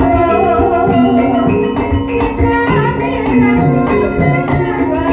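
Javanese gamelan ensemble playing live, with gongs and metallophones holding steady tones, regular hand-drum strokes and a singer's wavering melody over them.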